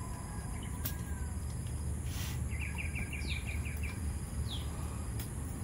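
A bird calling in the background: a quick run of about eight short chirps, with two short falling calls, over a steady low rumble.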